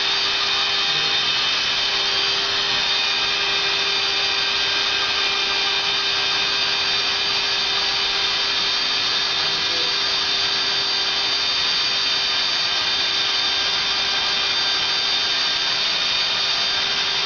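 Leister plastic welding machine running steadily, a constant motor hum with high steady whining tones over a hiss of blown air.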